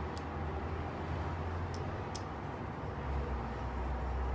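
A few sharp metal clicks as a small old iron clamp is handled and its screw handle turned, three in the first half, over a steady low rumble.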